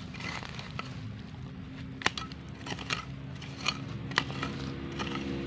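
Handheld metal detector over freshly hoed soil, giving a low steady hum that grows stronger near the end, with a handful of sharp clicks. It is signalling buried metal, which turns out to be an old tin can.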